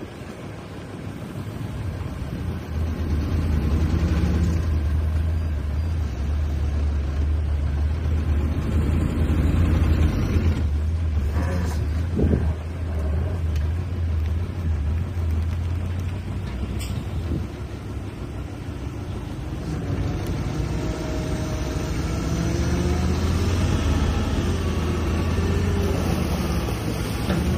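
Heavy diesel earthmoving machinery working: a deep, steady engine drone that grows louder over the first few seconds, with a brief rise in pitch about twelve seconds in and higher wavering whines over the last several seconds.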